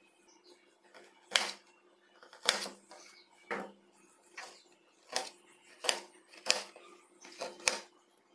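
Knife chopping baby corn on a ceramic plate: about nine sharp clicks of the blade striking the plate, roughly one a second, with the last two close together.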